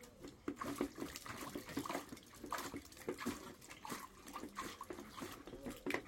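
Water splashing irregularly in short, uneven bursts as a Shiba Inu plays in it.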